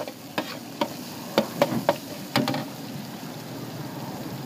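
Metal spatula clacking and scraping against a large iron wok while stir-frying beef, about seven sharp knocks in the first two and a half seconds, then only a low steady frying hiss.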